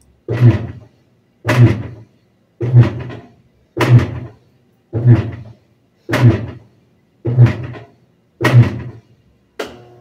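Magic Queen Evoluzione 9 SX top-load washing machine's motor jerking the agitator back and forth, a clunk with a short hum about once a second. The machine is starting its wash cycle normally, without the intermittent fault. Near the end a steady hum starts as the water inlet solenoid valve opens to fill.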